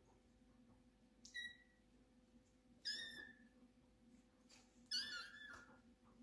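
Tabby kitten mewing three times, short high-pitched cries, the last one the longest.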